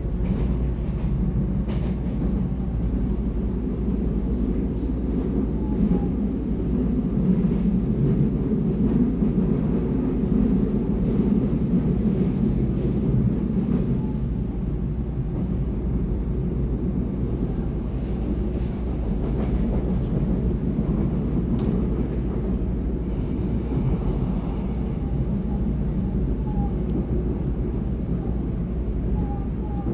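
Steady rumble of a Taiwan Railway EMU700 electric local train, heard from inside the moving carriage as its wheels run over the rails. It grows a little louder for a few seconds about a third of the way in.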